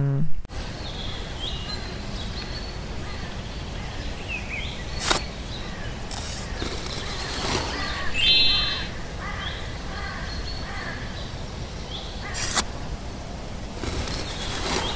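Outdoor ambience with birds chirping again and again over a steady hiss, broken by two sharp clicks several seconds apart. A rougher, louder noise sets in near the end.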